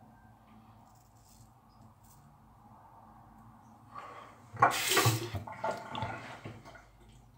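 Water from a bathroom tap running and splashing into the sink for about three seconds, starting about four seconds in and strongest around its start.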